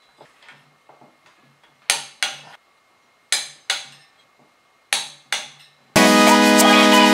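Background music: a sparse passage of paired short, sharp notes that fade quickly, coming about every second and a half. The full arrangement comes back in about six seconds in.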